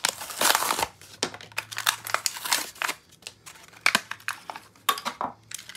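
Clear plastic blister packaging crinkling and crackling as it is pried off its cardboard backing card to free a diecast toy car, with a run of sharp irregular snaps and clicks.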